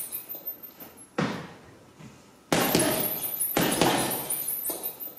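Gloved punches landing on a heavy bag and squat-jump landings during a jab-cross and squat-jump drill: three sharp thuds about a second apart, each ringing out as the bag and its fittings rattle.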